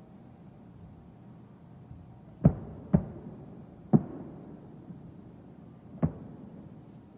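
Fireworks shells bursting: four sharp bangs, the first two about half a second apart, each with a short rumbling tail.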